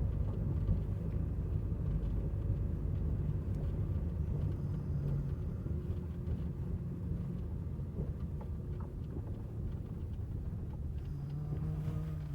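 Car engine and tyre rumble heard from inside the cabin while driving slowly, a steady low drone with a faint engine hum.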